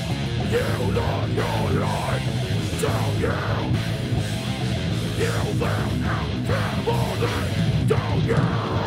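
Heavy metal/hardcore band playing live: distorted electric guitars, bass guitar and drum kit.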